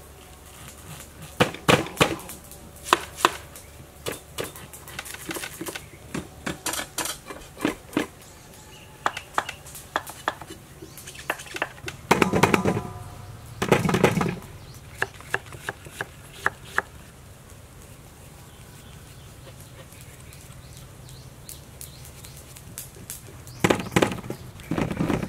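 Cleaver chopping pumpkin: a run of sharp knocks over the first ten seconds, two heavier, louder bursts around twelve and fourteen seconds in, and another cluster of knocks near the end.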